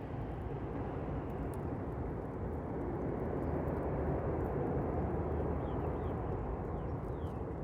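Campfire burning: a steady low rushing sound with a few faint crackles.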